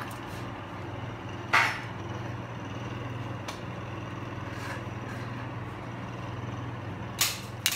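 A steady low hum with a few short, brief scraping noises, about one and a half seconds in, again near three and a half seconds, and twice near the end.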